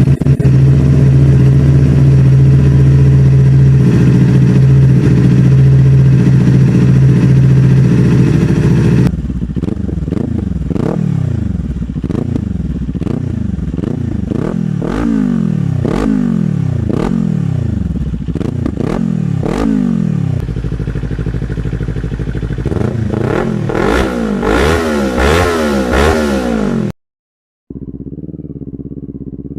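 Kawasaki Z400 399cc parallel-twin engine with a slip-on muffler, idling loudly and steadily for about nine seconds. It is then revved again and again in blips, each rising and falling in pitch, with a clattering edge. Near the end the sound cuts out briefly, then a quieter idle starts.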